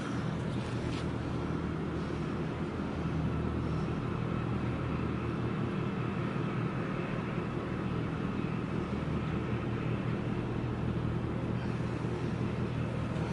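Steady low drone of ship engines from a large container ship and its tug passing close by, a constant deep hum over a wash of background noise.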